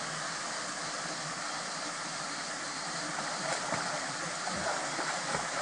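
Steady rush of a small waterfall spilling into a rock pool, with light splashing from a swimmer's strokes in the second half.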